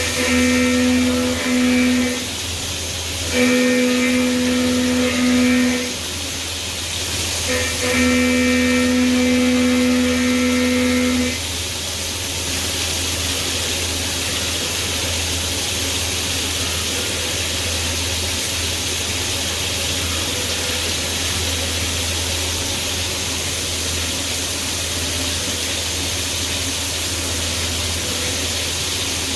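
Milling machine cutting pockets into vise soft jaws: a pitched hum comes and goes three times over the first ten seconds or so, over a steady hiss, then only the steady hiss continues.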